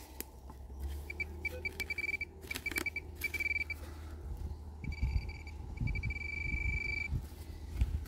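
Metal detecting gear beeping with a high, steady electronic tone: short beeps at first, then longer held tones in the second half. This is the sound of a detector or pinpointer signalling buried metal. Low rumbling handling noise on the microphone runs under the later tones.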